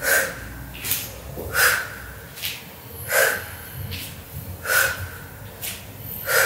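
A woman breathing hard from exertion during skater jumps: a sharp, forceful exhale about every one and a half seconds, with lighter breaths in between.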